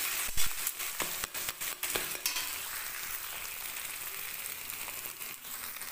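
Eggs sizzling in hot oil in a kadai while being scrambled with a spatula. The spatula scrapes and taps against the pan several times in the first two seconds, then the sizzle goes on steadily with only a few more scrapes.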